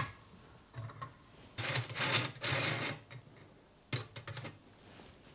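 Metal scraping and clicking as a simmer ring is fitted over a brass spirit burner and slid into place inside a stainless steel stove. The scraping comes in two stretches, and a few sharp clicks follow about four seconds in.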